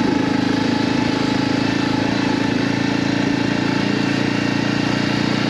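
Dual-sport motorcycle engine running steadily at an even pitch, holding a constant speed without revving.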